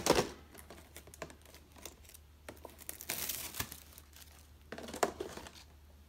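Clear plastic packaging crinkling and rustling as blister-carded action figures are handled, with scattered light clicks and taps. The louder rustles come at the start, around three seconds in, and again about five seconds in.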